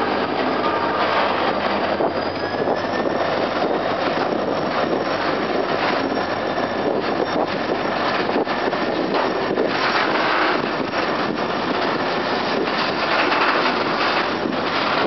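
Diesel-hauled container freight train rolling slowly past close by. The locomotive's engine goes by first, then a steady rumble of the flatcars' steel wheels on the rails with scattered clicks.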